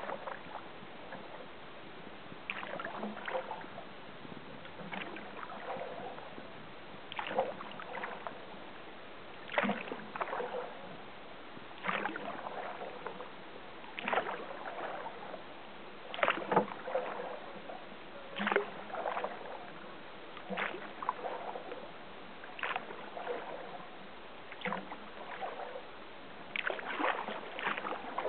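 Kayak paddle strokes in calm water: a short splash and trickle each time the blade dips in and pulls through, at an even pace of about one stroke every two seconds.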